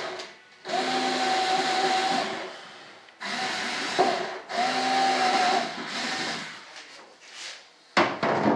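Power drill-driver running in three bursts of one to two seconds each with a steady whine, driving screws into the model's fuselage. A sharp knock near the end.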